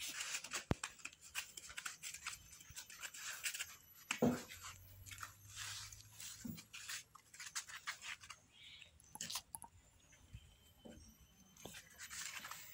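Goats scuffing and rustling on a plastic tarp and crunching grain from a metal bowl: a run of irregular crackly scrapes and crunches, with one short, louder low sound about four seconds in.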